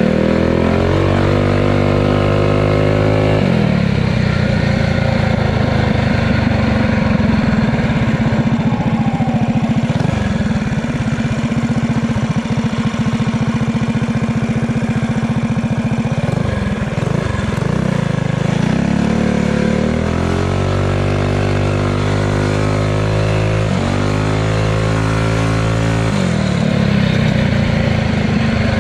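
Single-cylinder pit bike engine pulling hard under a riding throttle. Its pitch climbs, then drops abruptly at a gear change about three seconds in and again near the end.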